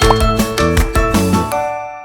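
Upbeat children's background music with a steady bouncy beat, fading out near the end.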